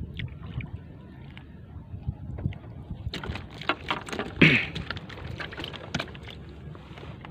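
Gusty wind rumbling on the microphone over lapping, splashing water, with scattered clicks and a busier run of splashes and clicks from about three seconds in, loudest at one sharp splash about four and a half seconds in.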